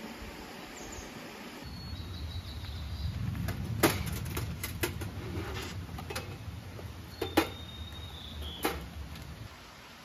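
Sharp clicks and knocks of camp gear handled on a steel mesh table mounted on a spare tyre: a metal box's lid and latches and other items set down, some with a short metallic ring, over a low steady rumble.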